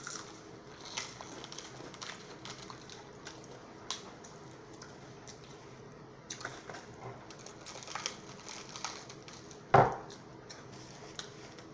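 A person eating fried chicken and a biscuit: scattered soft clicks and ticks of chewing and handling the food and its packaging, with one louder knock about ten seconds in.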